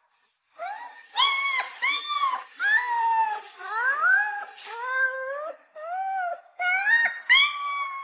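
Puppy whining and crying: after a moment's silence, a quick string of high-pitched whimpers follows almost without a break, many of them gliding up in pitch.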